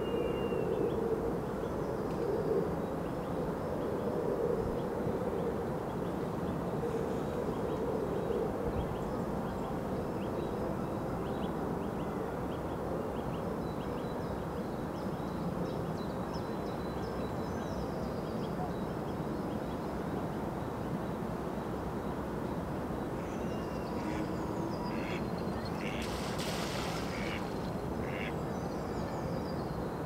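Ducks quacking on a park lake over a steady rustle of wind in the trees, with small birds chirping faintly in the background. A short burst of louder calls comes near the end.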